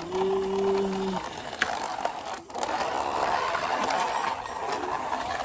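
A plastic toy vehicle being pushed along, its wheels and gears giving a steady rattling whirr from about two and a half seconds in. It is preceded by a brief held hum in the first second.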